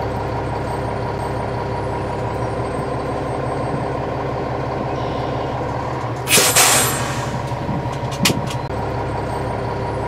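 Fire department tanker truck's diesel engine running steadily, with a loud hiss of the air brakes about six seconds in as the truck stops, and a short knock a couple of seconds later.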